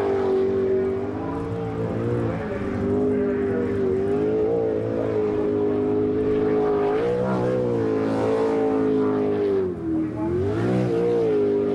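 Jetsprint Superboat's V8 engine running at high revs. Its pitch dips and climbs back several times as the throttle comes off and on again through the corners.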